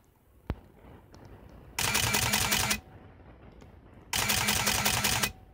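Canon EOS-1 film SLR with Power Drive Booster E1 firing in high-speed continuous mode: two bursts of about a second each, the shutter and motor drive cycling at roughly five to six frames a second. A single sharp click about half a second in.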